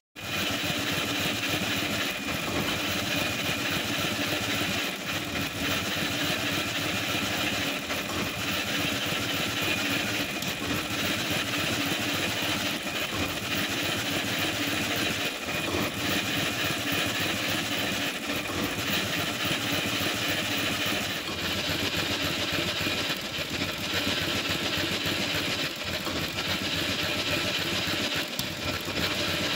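Four-cylinder Gardner stationary engine running steadily.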